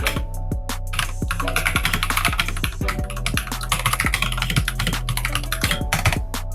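Rapid typing on an XVX H61 60% mechanical keyboard with tactile purple switches: a dense, continuous run of key clicks. Background music with a steady beat plays underneath.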